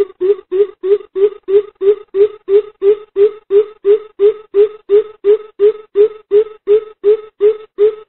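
Greater coucal giving its deep hooting call, a long run of even 'boop' notes at about three a second. This is the bìm bịp call that trappers play as a lure to bring others in.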